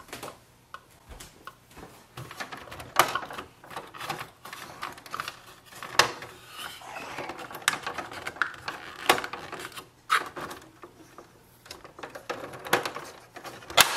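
Hard plastic parts of an Epson ET-2720 ink tank unit and printer housing being handled and pressed into place: scattered clicks, taps and small rattles over soft rubbing, with sharper snaps about 3, 6 and 9 seconds in.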